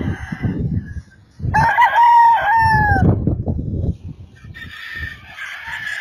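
Roosters crowing: a loud, clear crow about a second and a half in whose last note falls, with hoarser crows before and after it. Low rumbling runs underneath.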